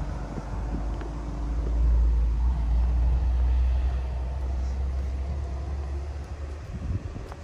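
Low rumble of a motor vehicle passing by, swelling about a second in and fading away over the next few seconds.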